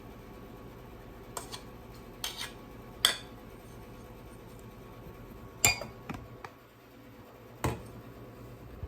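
A spoon clinking and scraping against dishes as a thick cream-soup mixture is spooned out: about six sharp, irregular knocks, the loudest about three seconds in and again about five and a half seconds in.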